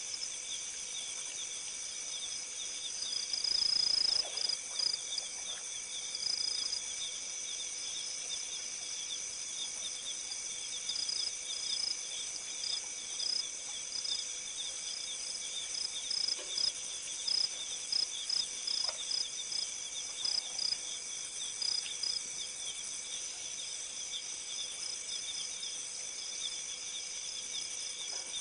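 Night-time insect chorus: several high steady trills overlap, one of them pulsing rapidly. A higher caller chirps in short repeated notes from about three seconds in until a little after twenty seconds. A faint steady hum runs underneath.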